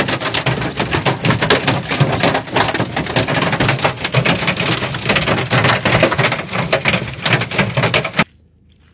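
Hailstones clattering against a car's body in a dense, loud, rapid barrage that cuts off suddenly near the end.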